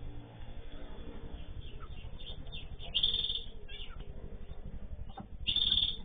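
Small aviary finches chirping: scattered short high calls, with a louder burst of chirping about three seconds in and again near the end, over a steady low hum.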